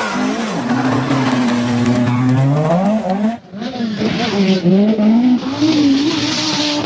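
Rally car engines at high revs, their pitch rising and falling with throttle and gear changes. The sound cuts abruptly about halfway through to another car running.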